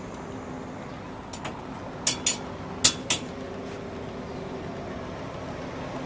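A fainter click, then four sharp clicks or knocks in quick succession, over a steady low background hum.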